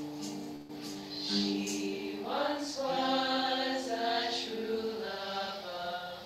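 A small women's choir singing slowly in long, held notes, sliding up into a higher chord about two seconds in.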